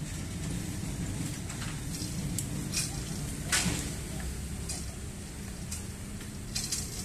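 Steady low rumble of a passenger train pulling away over the rails, with scattered clicks and rattles, one sharper click about halfway, as bicycles are wheeled across the tracks.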